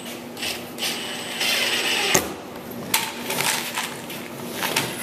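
A cordless drill runs briefly as it drives a screw into a wooden bottom plank. Sharp clicks and small rattles of screws follow as more are picked out of a plastic parts bin.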